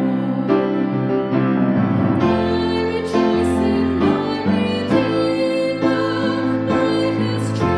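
A woman singing a slow worship song, accompanying herself on piano with steady chords.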